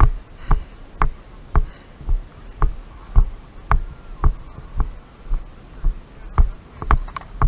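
Steady footsteps at a walking pace, about two a second, each a dull thud with a sharp click on top.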